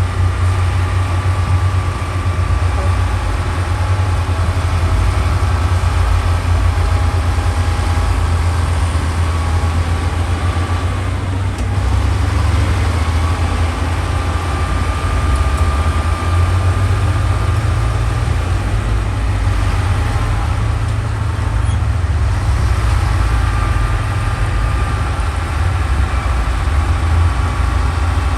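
Heavy diesel engine of earthmoving machinery running steadily with a deep hum and a thin high whine that dips briefly about halfway through.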